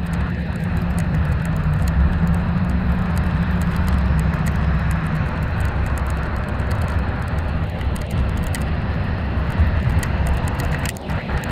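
Moving coach heard from inside the cabin: steady engine drone and tyre/road noise at speed, a low rumble with a hum that fades out about halfway through. A few light clicks come near the end.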